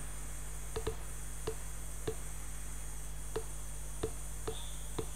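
Computer mouse clicking, about eight short single clicks spaced irregularly, a couple in quick pairs, as anchor points are placed with Illustrator's Pen tool. A steady low electrical hum runs underneath.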